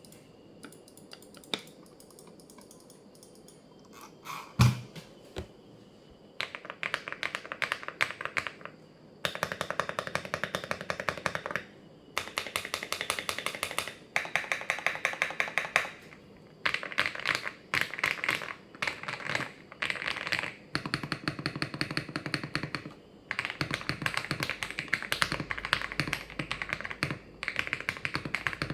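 Mechanical keyboard with Akko V3 Cream Yellow linear switches in a gasket-modded build, typed on in fast runs of a few seconds with short pauses between them. Before the typing starts, about six seconds in, there are a few scattered key clicks and one louder thump.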